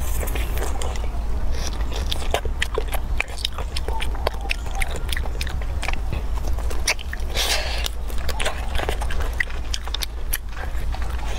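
Close-up eating sounds: biting into and chewing a chili-topped piece of free-range chicken, with many short sharp mouth clicks and smacks, over a steady low hum.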